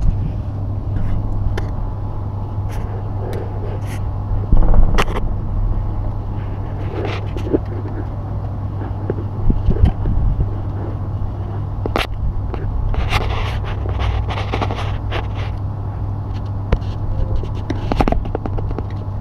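Screwdriver scraping and clicking on the mounting screw of an air conditioner outdoor unit's fan capacitor as it is undone, with a longer run of scraping partway through, over a steady low hum.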